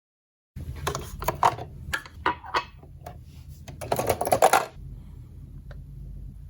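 A quick run of sharp clicks and clatters of hard objects being handled, densest about four seconds in, then stopping, over a steady low hum.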